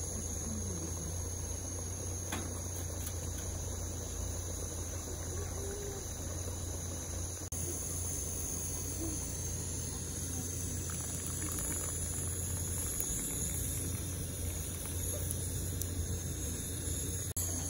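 Crickets chirring in a steady, continuous high-pitched night chorus, over a steady low hum, with a few faint small clicks.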